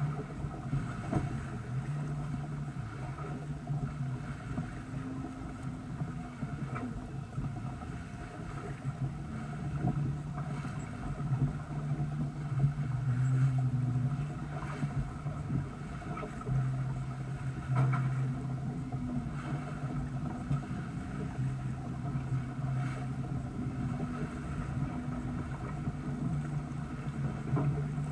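Sailboat hull moving through choppy water: a steady rush and low rumble of water along the hull, with occasional splashes.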